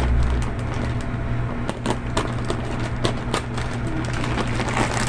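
Plastic packaging crinkling and crackling in irregular short clicks as a packed comforter set is pulled from its bag, over a steady low hum.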